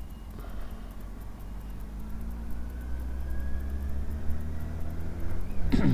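Honda Hornet 900 motorcycle's inline-four engine pulling under way, its revs rising steadily for a few seconds, then falling sharply near the end as the rider changes up a gear.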